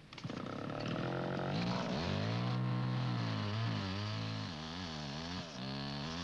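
Two-stroke chainsaw cutting into a spruce trunk. It comes in suddenly and runs high at first, drops in pitch about two seconds in as the chain bites under load, then rises and falls repeatedly as the cut goes on.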